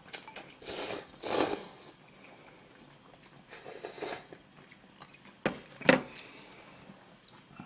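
Ramen noodles slurped in two long pulls, then broth sipped from a bowl, followed by two sharp knocks about five and a half seconds in as the bowl and chopsticks are set down on the table.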